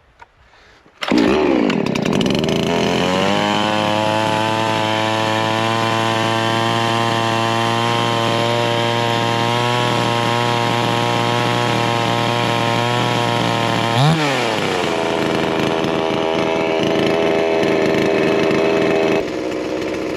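Gas two-stroke chainsaw engine catching about a second in and then running steadily at a high idle, with one quick rev up and back down about two-thirds of the way through. The idle is set far too high straight out of the box and needs adjusting down.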